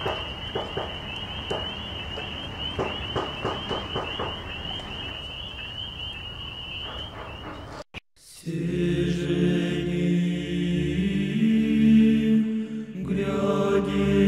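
Orthodox liturgical chanting starts after a brief dropout about eight seconds in: voices holding long notes, which change pitch only now and then. Before it, a steady high trill runs with scattered clicks.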